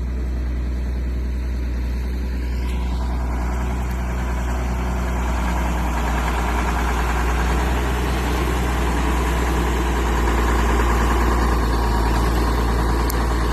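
Truck engine running with a steady low drone, heard from inside the cab along with even road and cab noise.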